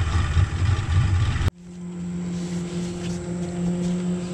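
Boat motor running under way, with loud rushing wind and water noise at first; about a second and a half in this cuts off abruptly to a steadier, even engine hum.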